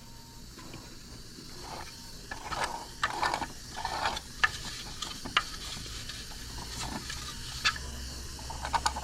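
Irregular clicks, taps and short scrapes of whistle parts being handled and fitted together, over a faint low hum.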